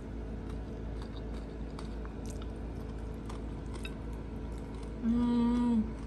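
Quiet chewing and small clicks of a woman eating rice and spicy fried anchovies with her fingers. About five seconds in comes a short, louder held "mmm" hum of enjoyment that dips at its end. A steady low hum runs underneath.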